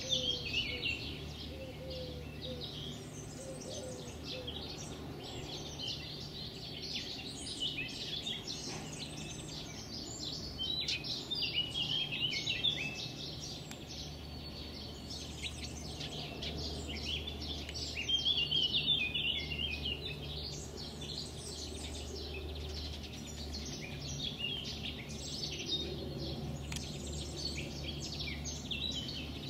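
Songbirds singing and chirping, several at once in a dense overlapping chorus of quick high trills and chirps, over a steady low hum.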